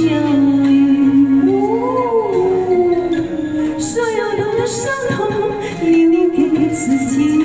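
A woman singing a Chinese pop song into a microphone over backing music, her voice holding long notes that bend up and down.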